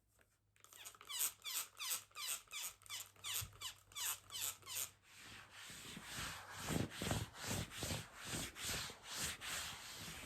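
Hands rubbing under a face-up client's neck and shoulders on a vinyl-covered massage table, the skin dragging against the vinyl in rhythmic rubbing strokes about two a second, starting about half a second in.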